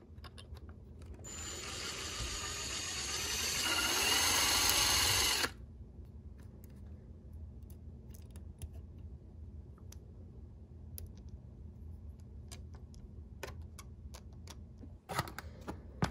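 Cordless drill with a small bit running, drilling out a screw stud broken off inside a model locomotive's chassis. It starts about a second in, grows louder, and stops abruptly after about four seconds. Faint scattered clicks of small parts being handled follow.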